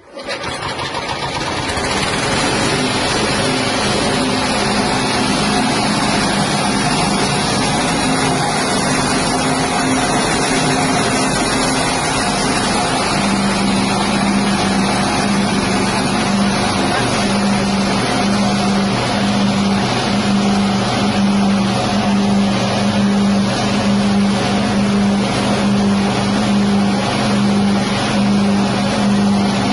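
Petrol-engine-driven rice-husk grinding machine running steadily at speed. A steady engine hum sits under a dense rushing noise from the mill, and the hum grows stronger about halfway through.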